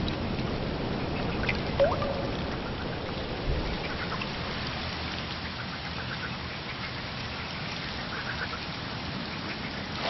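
Rain falling on shallow standing water: a steady patter of drops hitting the surface. A brief rising chirp about two seconds in.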